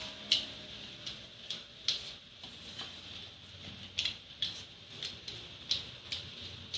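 A metal spoon scraping and clinking against a stainless steel mixing bowl as crumbly flour-and-oil pastry dough is stirred, in irregular sharp clicks about one to two a second.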